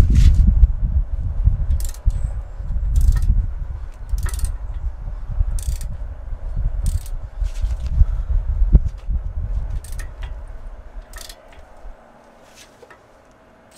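Socket wrench working a stubborn 21 mm caliper bracket bolt on a car's front brake: a series of sharp metallic clicks, one every second or so, over a heavy low rumble that fades away near the end.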